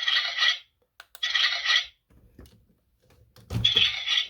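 A toy Kamen Rider Faiz Pointer kick accessory's small speaker plays its short, hissing 'removed from the belt' sound effect three times, each triggered by a single press of its button, with faint button clicks and handling noise between.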